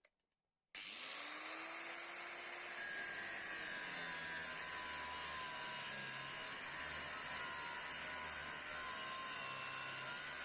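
An electric power tool starts suddenly about a second in, its motor pitch rising as it spins up, then runs steadily with a high whine over a hiss, typical of metal-working in a restoration.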